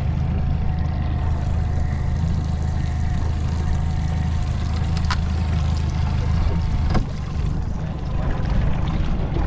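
Mercury outboard motor on a small aluminium boat running steadily, a low hum under a wash of water and wind noise. Two sharp clicks come about five and seven seconds in, and after the second one the engine's low hum drops away to a weaker note.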